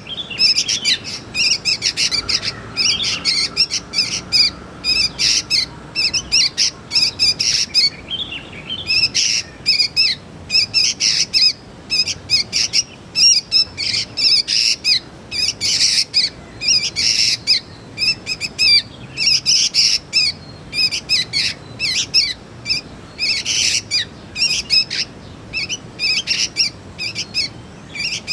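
Young sooty-headed bulbul (kutilang) calling: a rapid, almost unbroken string of short high chirps, with brief lulls about eight seconds in and again around thirteen seconds.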